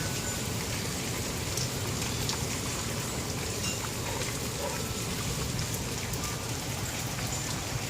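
Steady rain falling, with many scattered drops ticking on hard surfaces.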